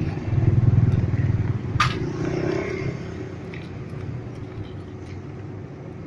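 A motor vehicle's engine passing close by, loudest in the first two seconds and then fading away. A sharp metallic click comes about two seconds in, with lighter ticks after it, from a metal scoop working stone chips in a metal tray.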